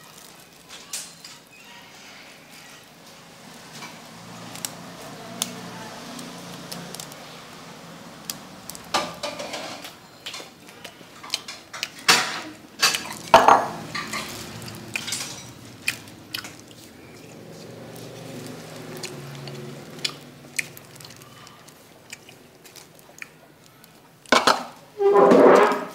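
Chopsticks clinking and scraping against a soup bowl in scattered short knocks while noodles are stirred and picked up, over a soft background murmur. Near the end a louder rustle of handling, as a plastic sauce packet is torn open.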